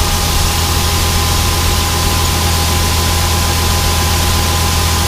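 Tractor engine running steadily while driving a grain auger, with a steady high squeal from the auger over the rush of noise. The owner thinks the squeak comes from inside the auger, not from a bearing.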